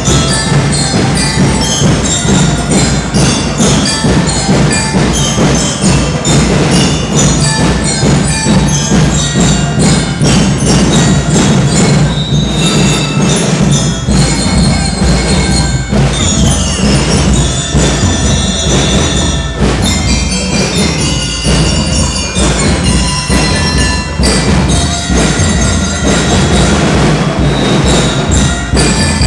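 School band playing: drums striking steadily under bright, bell-like mallet percussion tones, loud and continuous.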